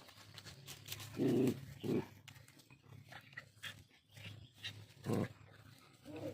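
Two dogs squabbling over food: short loud barks about a second in, again near two seconds, and once more just after five seconds, with small clicking sounds between.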